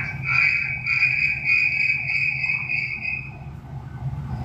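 Acoustic feedback howl from the Ezviz H3 3K camera's speaker: the phone's two-way-talk microphone picks up the speaker and loops it, giving a steady high whistle that pulses slightly and stops about three and a half seconds in.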